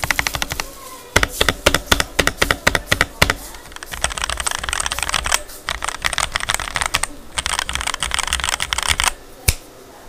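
Modded Rakk Lam Ang Lite mechanical keyboard, fitted with foam and tape mods, typed on fast with both hands: dense runs of key clacks with short breaks, then a single keystroke near the end.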